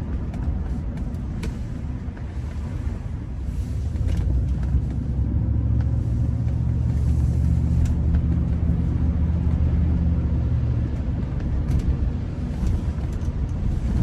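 Engine and road rumble heard inside a moving car's cabin on a wet road. The engine note grows stronger from about five seconds in and eases off again near eleven seconds.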